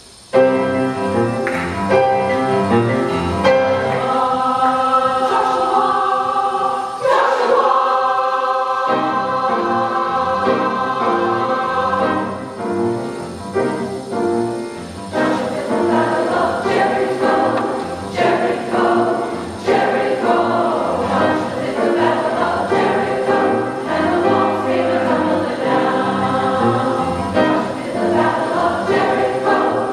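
Women's chorus singing a gospel song with piano accompaniment, the music coming in suddenly just after the start.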